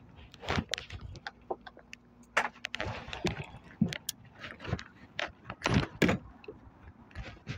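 A series of irregular clicks, knocks and rattles, scattered unevenly with short gaps between them.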